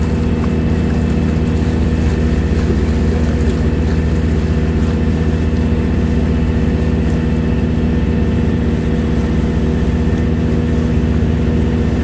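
Boat engine running at a steady, even pitch, with water rushing and splashing along the hull.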